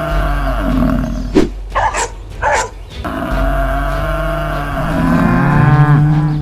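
Cattle mooing: two long, drawn-out moos, the second bending down in pitch near its end, with a few short sharp sounds between them about one and a half to two and a half seconds in.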